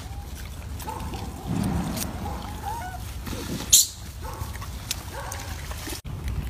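Short chirping animal calls, several in a row, with a sharp brief noise, the loudest sound, near the middle.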